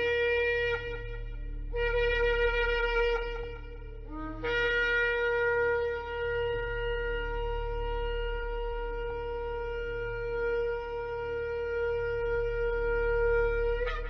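Shofar blowing: a short blast ending about a second in, a second blast of about two seconds, then one long steady held note that fills the rest.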